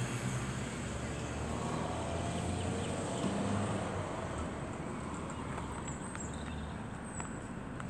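Low, steady drone of a distant engine over outdoor background noise, dying away near the end.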